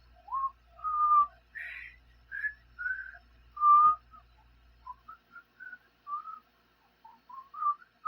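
Someone whistling a meandering little tune of short notes, some sliding up or down in pitch.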